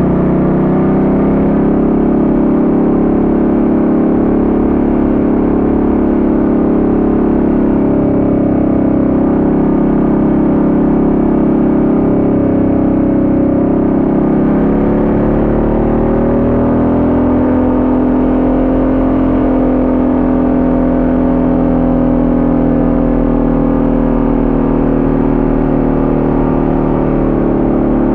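Ducati Multistrada 1200S's L-twin engine running under way. The engine note holds fairly steady, then dips and climbs again about halfway through as the bike takes a bend and accelerates out.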